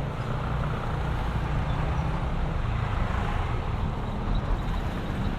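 Motor scooter running at a steady cruise, its engine mixed with road and traffic noise.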